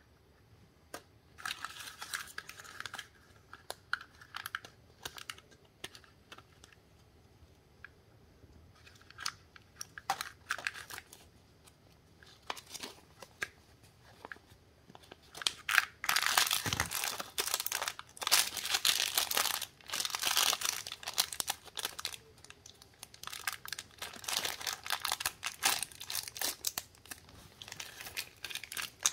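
Crinkly plastic candy wrapper being handled and torn open by hand, in bursts of crinkling and tearing that are densest and loudest for several seconds about halfway through.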